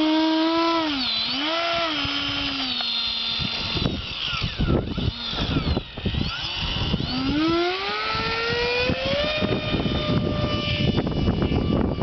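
Electric ducted-fan motor of an RC F-35 model jet whining, its pitch dipping and steadying, then rising smoothly about seven seconds in as the throttle comes up. Heavy wind buffeting on the microphone runs underneath and grows stronger toward the end.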